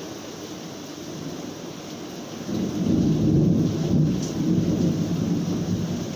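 Steady rain, with a roll of thunder that swells up about two and a half seconds in and slowly rumbles away.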